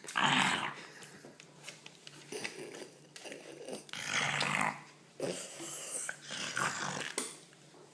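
French bulldog making pig-like grunting noises while being petted, in about five breathy bursts, the loudest at the start and about four seconds in.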